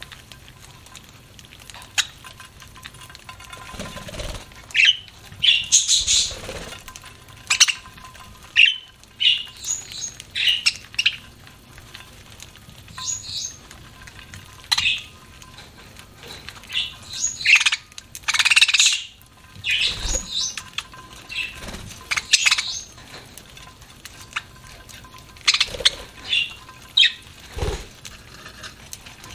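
Pet budgerigars chirping and squawking in short, irregular calls, mixed with sharp clicks and a few low thumps.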